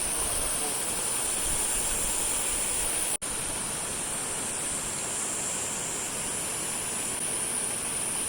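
A steady, high-pitched insect chorus over an even rushing hiss, typical of a rainforest trail in summer. The sound cuts out for a split second about three seconds in, then carries on unchanged.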